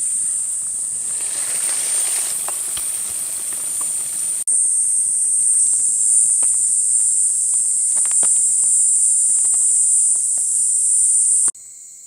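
Food in a cast iron skillet hissing over a wood fire, with scattered sharp crackles and clicks, over a steady high-pitched insect drone. The sound jumps in level at two abrupt cuts.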